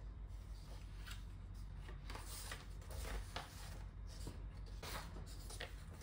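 Faint scattered rustling and handling noises, short soft scrapes and rustles, over a low steady room hum.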